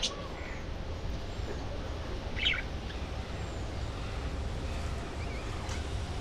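Budgerigars giving a few sparse chirps: one clear short chirp about two and a half seconds in, the others faint, over a steady low background rumble.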